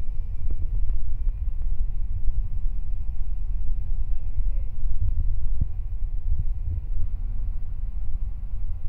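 Truck-mounted crane's engine running steadily under load while it holds and swings a steel pontoon section, a deep rumble with a steady hum over it and a few short knocks.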